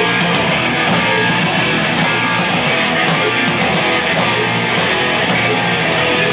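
Loud rock music led by guitar, with a steady beat.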